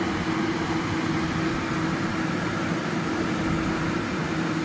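Steady whirring hum of a kitchen fan, with one constant low tone running under an even rush of air.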